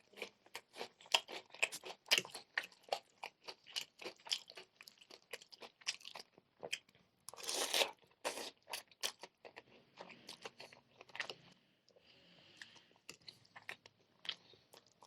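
Chewing and crunching of crispy fried chicken: rapid crisp crunches through the first half, one louder bite about halfway through, then softer, sparser chewing.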